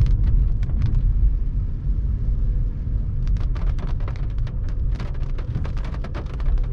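Car driving on a wet road in the rain: a heavy low rumble of wind buffeting the microphone and road noise, with scattered raindrop taps that come thickest from about three seconds in.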